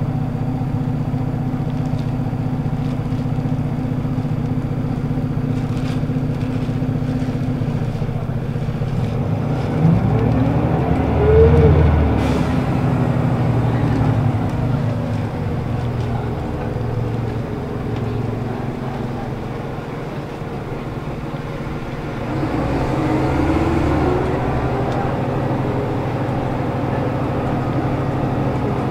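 Scania L94UB city bus's diesel engine, driving through a ZF automatic gearbox, heard from inside the passenger cabin. It runs steadily, then accelerates twice, about ten seconds in and again a little past twenty seconds, the engine note rising in pitch each time.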